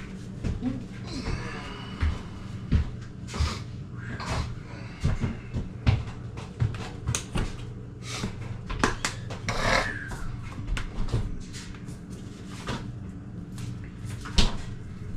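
Kitchen clatter: irregular clicks and knocks of items being handled, over a steady low hum.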